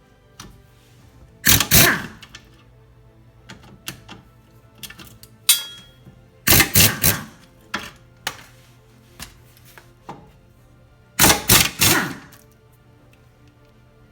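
Impact wrench hammering in three short bursts about five seconds apart, breaking loose and spinning out engine cradle bolts, with smaller tool clicks and clanks in between.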